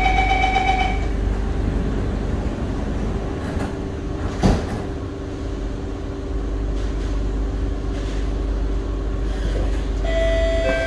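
Steady running noise inside an SMRT C151B metro train carriage, a constant hum with low steady tones. A chime fades out about a second in, a single sharp knock comes about halfway through, and another chime starts near the end, ahead of the next-station announcement.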